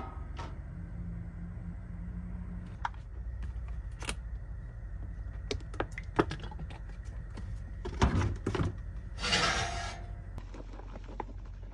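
Kitchen utensils and dishes being handled during food prep: scattered clicks and knocks over a low steady hum, with a cluster of knocks about eight seconds in and a short rustling hiss just after nine seconds.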